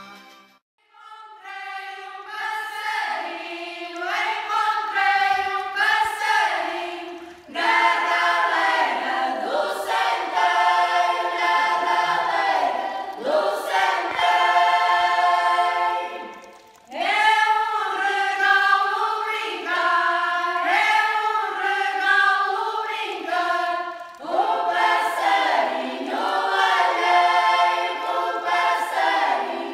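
A choir singing a traditional Portuguese folk song a cappella, in long phrases with short breaths between them. It starts about a second in, after a brief pause.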